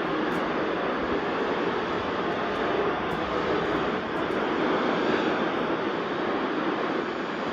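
Steady hiss of radio static, with no tone or voice in it.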